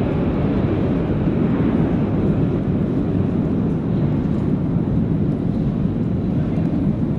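Steady low rumble of a metro train running through the station, with a higher hiss that fades over the first couple of seconds.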